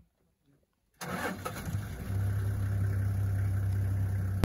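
A vehicle engine starting about a second in, then settling into a steady idle with a low, even hum.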